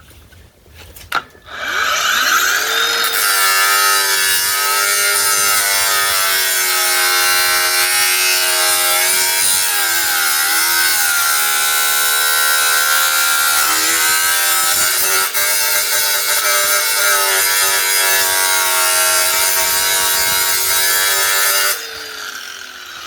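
Metabo 9-inch cordless angle grinder switched on about a second and a half in and spinning up, then grinding steadily through a rough weld with a loud whine and hiss. Its pitch sags briefly twice under load around the middle. Near the end it is switched off and winds down with a falling whine.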